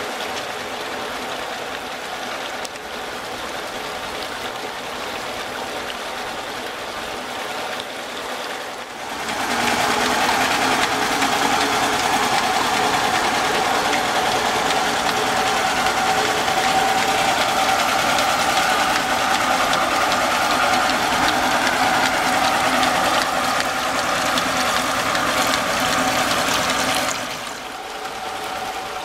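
Water gushing from the antique centrifugal pump's discharge hose and splashing into a galvanized stock tank, with a machine running steadily beneath. The rushing splash grows suddenly louder about nine seconds in and drops back near the end.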